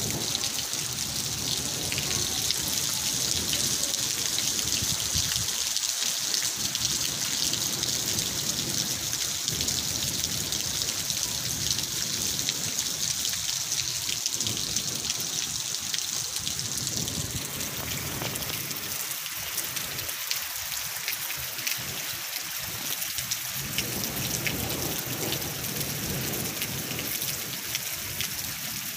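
Heavy rain falling steadily, a dense hiss that eases slightly about 17 seconds in.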